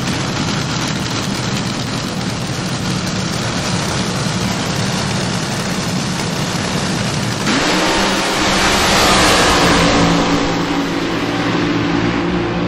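Nitro-burning front-engine fuel dragsters running loudly at the starting line. About seven and a half seconds in, the sound jumps suddenly louder and brighter as they launch down the track under full power.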